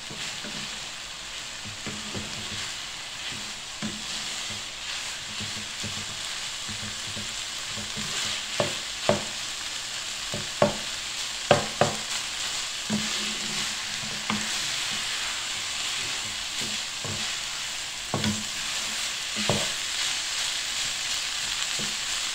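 Rice and ground beef sizzling in a non-stick frying pan over a raised flame while a wooden spatula stirs and scrapes through it. Sharp taps of the spatula against the pan are heard, a cluster of them in the middle and a couple more later.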